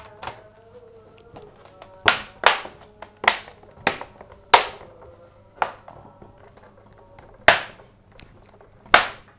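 Bottom cover of an HP Pavilion laptop snapping into its clips as it is pressed down around the edges: about eight sharp, separate clicks, each one a clip latching, which shows the cover is seated all round.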